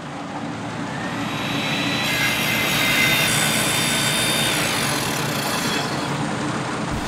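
Logo-animation sound effect: a rushing, rumbling noise with a low hum that swells over the first few seconds, carries a faint high whistle through the middle, and eases off a little near the end.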